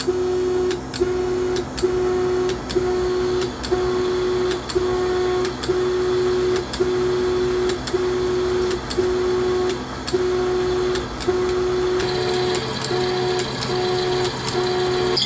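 Drill press spindle running as a 10 mm twist drill is fed up into aluminium by the motorised knee in a peck-drilling cycle. A pitched whine from the knee's drive motor switches on and off about every half second to second, with sharp clicks among it. A brighter cutting hiss joins about twelve seconds in.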